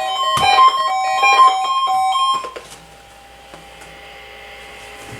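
A quick run of electronic alert tones, changing pitch like a short melody over a steady high tone, cutting off suddenly about two and a half seconds in. After that comes a faint steady hum with a low steady tone.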